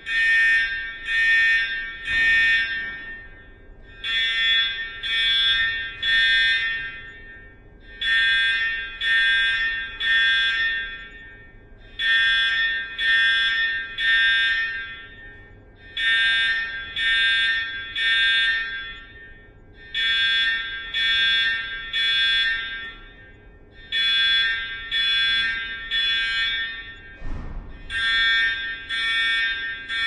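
Electronic fire alarm sounding the temporal-three evacuation pattern: three short buzzy beeps, then a pause, repeating about every four seconds. A faint steady hum lies under it, and there is one dull thump near the end.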